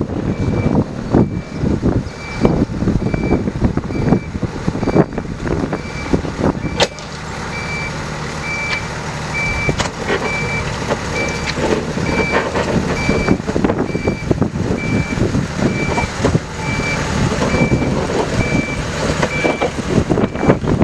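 Ex-Channel Tunnel RFS diesel-hydraulic narrow-gauge locomotive running as it moves slowly along the track. From about two seconds in, a warning beeper sounds about twice a second, with occasional clanks.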